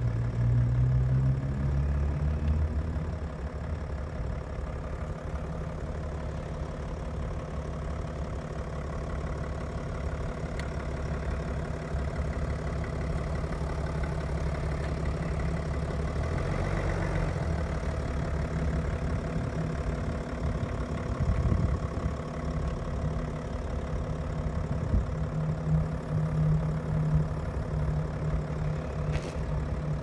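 BMW 730d's six-cylinder diesel engine idling steadily while the car creeps slowly out of its parking space and back in under remote control parking.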